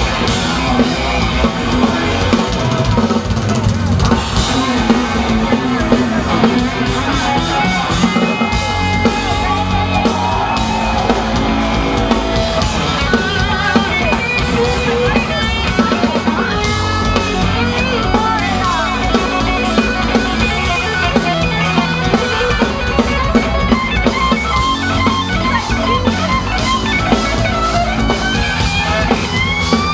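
Live hard rock band playing loud through a concert PA: an electric guitar lead with bending, sliding notes over drum kit and bass guitar.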